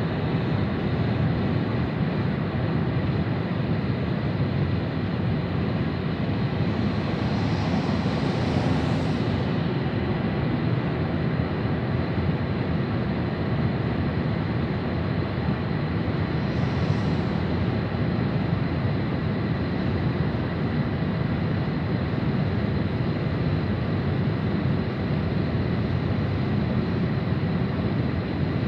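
Steady road and wind noise heard from inside a vehicle moving at highway speed, with two short swells of higher hiss, at about eight and seventeen seconds in.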